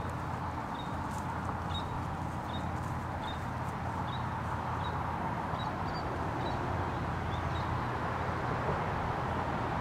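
A small bird chirping over and over, short high chirps roughly every three-quarters of a second that stop near the end, over a steady outdoor rumble and hiss.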